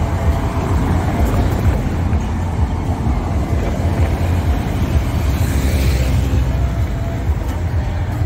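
Road traffic on a cobblestone street: cars and a van driving past, with a steady low rumble throughout. A louder pass comes about five to six seconds in.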